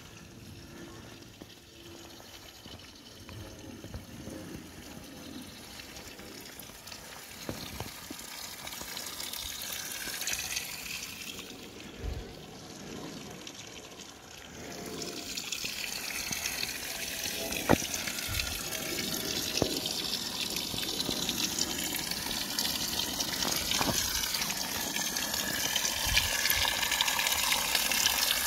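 Spring water running and splashing, getting steadily louder as it is approached, with a few short knocks over the flow.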